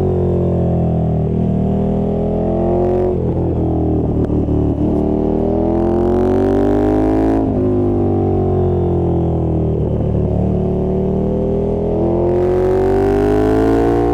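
2020 KTM Super Duke 1290R's V-twin engine pulling under throttle. Its note climbs in long sweeps and drops back briefly a few times as the revs fall, as through gear changes.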